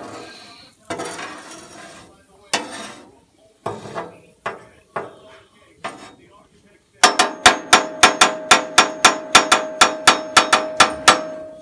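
Metal spatula scraping and knocking on a steel flat-top griddle. About seven seconds in it breaks into a fast run of sharp metal taps, about five a second, for some four seconds, with a steady ring under them.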